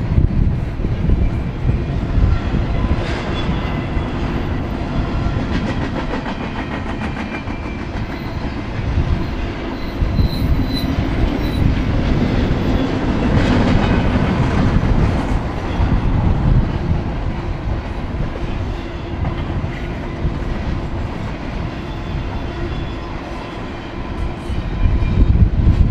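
Double-stack intermodal freight train of container-laden well cars rolling past at close range: a steady loud rumble of steel wheels on the rails with a running clatter, swelling a little about halfway through and near the end.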